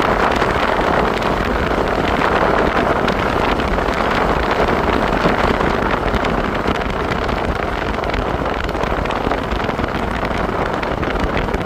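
Car driving along a road: a steady, loud rush of road and wind noise, with no distinct engine note.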